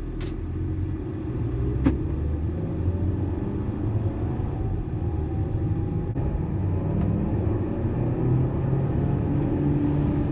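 2012 Volkswagen Eos driving, heard from inside the cabin: low road and engine rumble, with the engine note rising as the car accelerates. A sharp click just after the start and another about two seconds in.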